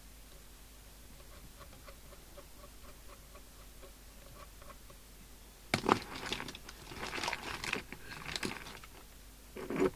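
Handling noise from the CB radio set being worked on: a sharp click about six seconds in, then about three seconds of irregular rustling, scraping and small clicks, as when the aerial socket is checked for looseness.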